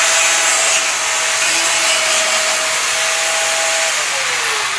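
Bosch Professional angle grinder running at full speed and grinding down protruding metal, with a steady motor whine over the grinding noise. About four seconds in it is switched off and the whine falls as the disc spins down.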